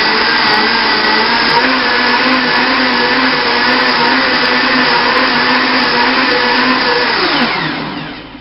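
Countertop blender motor running steadily as it blends almond milk eggnog, then spinning down with a falling pitch and stopping near the end.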